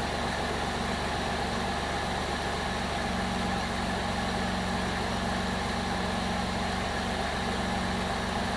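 Chrysler 3.7 L V6 in a 2002 Jeep Liberty idling steadily and evenly, freshly swapped in and running smooth.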